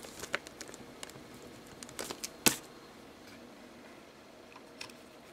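Scattered small clicks and rustles of things being handled on a cluttered workbench, with one sharp click about halfway through.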